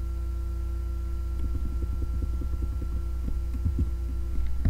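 Steady low electrical hum with a faint higher whine from the recording chain, with soft irregular low knocks through the second half.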